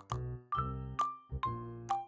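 Light, playful background music with bell-like notes struck about twice a second over a steady bass line.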